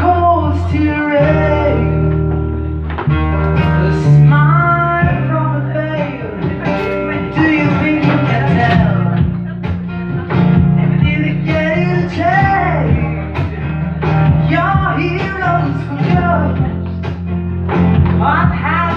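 Live acoustic music: guitar playing over sustained low notes, with a singing voice carrying a sliding, ornamented melody.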